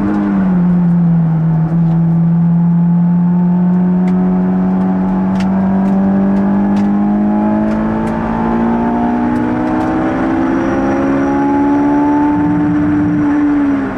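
Honda S2000's four-cylinder engine through a Tanabe Medallion Touring exhaust, heard from inside the cabin. It settles to about 4,800 rpm off the throttle, then pulls at full throttle in one gear, its note rising steadily to about 8,500 rpm before dropping at a gear change near the end.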